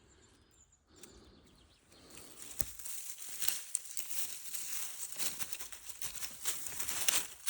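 Rustling and crackling of dry forest-floor litter being disturbed, beginning about two seconds in as many small crackles that grow louder toward the end.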